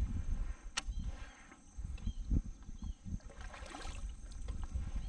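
Wind gusting over the microphone as an uneven low rumble that rises and falls, with a single sharp click about a second in.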